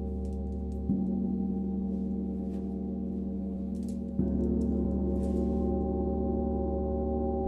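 Gong struck twice, about a second in and again about three seconds later, each stroke swelling a low, steady, layered ringing that sustains between strikes.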